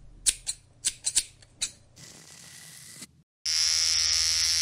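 About six quick, sharp clicks in the first two seconds, then a soft hiss. About three and a half seconds in, an electric hair trimmer switches on abruptly and runs with a steady, high buzz.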